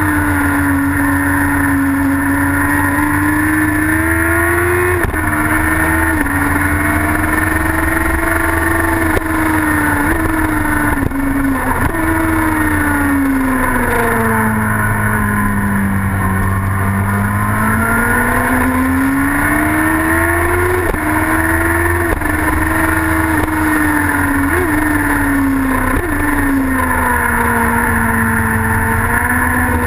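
Racing sidecar outfit's engine running hard at racing speed, its pitch rising and falling through the corners. There are a few sudden drops in pitch as it shifts up, and a long slow dip around the middle as it slows for a bend before climbing again. A steady rush of wind and road noise runs underneath.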